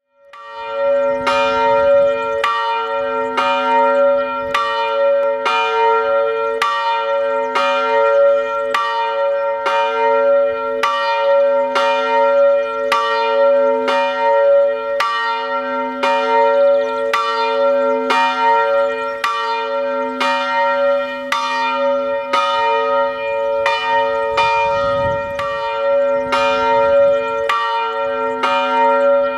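Church bell ringing steadily, struck about every three-quarters of a second, each stroke's tone ringing on into the next. It is the bell rung before the service.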